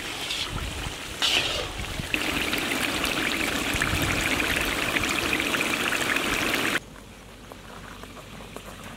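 Cornstarch-thickened gravy boiling hard in a large wok, a dense steady bubbling and popping while it thickens. It cuts off suddenly about two-thirds of the way through, leaving only a faint hiss.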